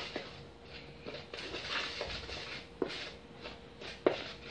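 Bread dough being mixed by hand in a plastic tub: flour, water and yeast squishing and rustling in repeated strokes, with three knocks against the tub, near the start, about three seconds in and about four seconds in.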